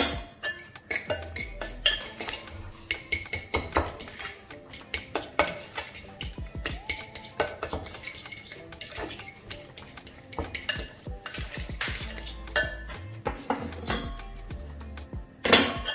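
A metal fork mashing and stirring egg yolks with mayonnaise in a glass bowl: quick, irregular clinks and scrapes of the fork against the glass. Near the end a spoon knocks against a stainless steel bowl with one louder clink.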